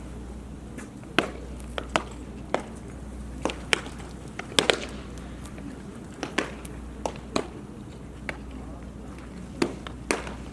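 Baseballs smacking into leather gloves as several pairs of pitchers play catch: a dozen or so sharp pops at irregular spacing, some close together, over a low steady rumble.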